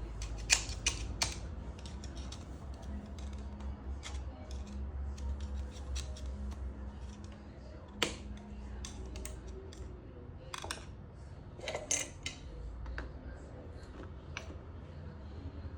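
Scattered metallic clicks and taps from motorcycle parts and tools being handled, with sharper knocks about half a second in, at about eight seconds and around eleven to twelve seconds, over a low steady hum.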